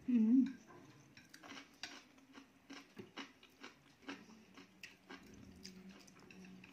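Chopsticks clicking and scraping against plates in scattered, irregular taps, with chewing between them.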